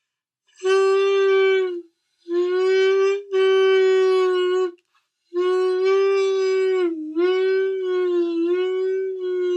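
Saxophone mouthpiece and neck blown on their own, without the body: four held tones at about the same pitch, each with strong overtones. The last, long tone bends down in pitch about seven seconds in and back up, as the bottom opening of the neck is closed off.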